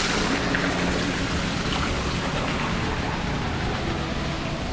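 Thin waterfall pouring from an artificial rock and splashing into a shallow pool: a steady rush of falling water.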